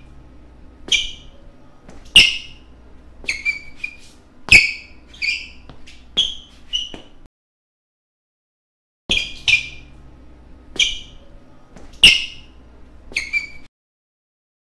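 Sneakers squeaking on a studio floor during dancing: a series of short, sharp, high-pitched squeaks at uneven intervals over a faint room hum. The sound cuts to dead silence for about two seconds in the middle, then the squeaks resume.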